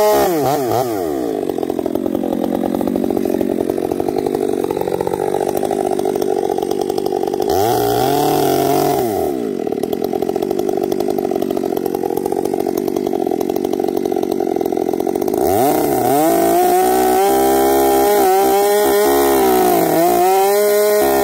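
Gas chainsaw cutting with its bar bored through a tree trunk for a T-hinge felling cut. The engine pitch drops under load just after the start, with a brief rise and fall about eight seconds in. Near the end it climbs to a higher, steadier pitch.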